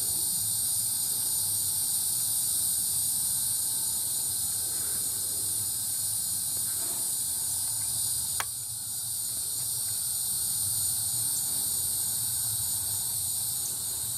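Steady, high-pitched chorus of night insects, with a single sharp click a little past halfway.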